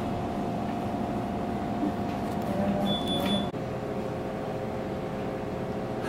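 Steady machine hum of refrigeration and air-conditioning equipment in a small room: an even drone with several steady low tones. A short high tone sounds about three seconds in.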